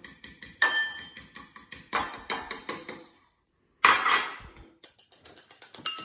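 A metal fork clinking against white ceramic bowls about half a dozen times, sharp ringing taps, as sugar is added bit by bit to egg yolks.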